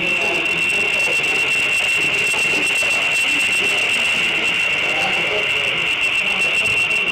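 Model freight train rolling past close by, its wheels running steadily along the rails with a high whine.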